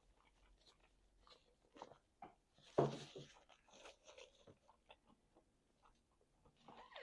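Faint chewing and mouth sounds of someone eating close to the microphone: scattered small clicks and smacks, with one louder mouth sound about three seconds in.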